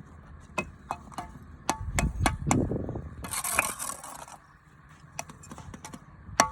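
Irregular sharp clicks and taps with a slight metallic ring, a low rumble about two seconds in, and a short hiss a little after three seconds.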